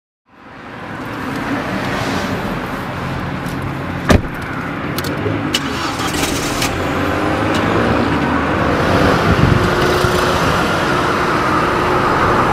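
A car driving: steady engine and road noise that fades in at the start and grows a little louder in the second half, with one sharp click about four seconds in.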